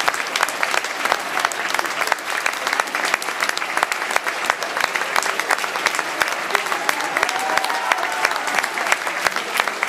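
Theatre audience applauding a curtain call, with dense, steady clapping that never breaks.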